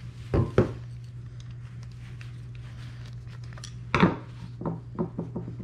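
Metal clinks and taps of a screwdriver and small shifter parts being handled: two sharp knocks near the start, then a quick run of clicks about four seconds in. A steady low hum sits underneath.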